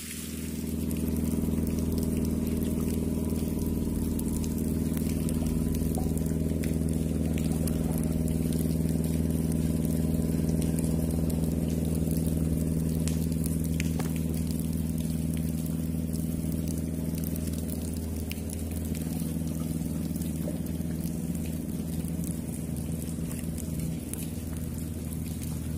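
Steady low drone of a running engine, easing slightly in the last few seconds.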